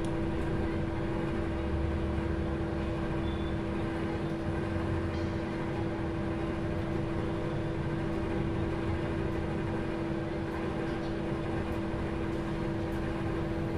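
Microwave oven running mid-cycle: a steady hum with one constant low tone.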